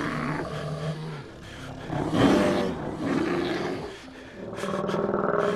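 Monster roars and growls, pitched and gliding. The loudest is a roar that rises and falls about two seconds in.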